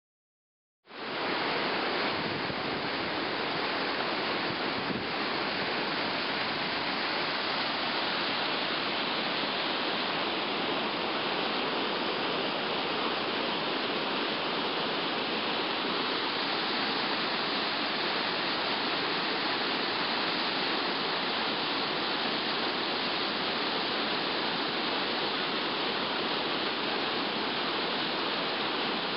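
River rapids rushing steadily as whitewater, starting abruptly about a second in.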